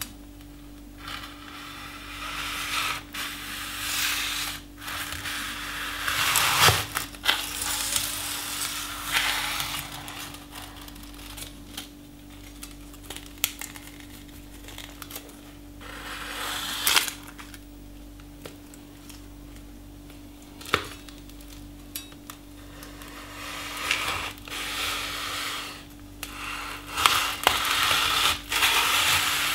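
A heavy forged cleaver-style kitchen knife cutting through a cigarette pack on a wooden board: irregular crunching and crinkling as the blade crushes the pack's card, foil and cigarettes, with sharp knocks where the edge meets the board.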